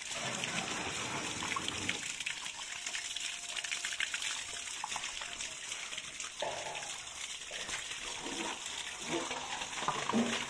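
Tap water gushing steadily over a large tilapia on a tiled floor, splashing as hands rub the fish, with short scraping clicks from a fish scaler taking off the scales.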